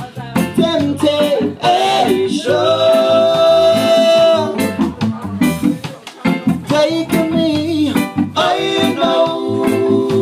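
Live reggae band playing, with electric guitar, a drum kit keeping a steady beat, and a singer. Long held melody notes come about two seconds in and again near the end.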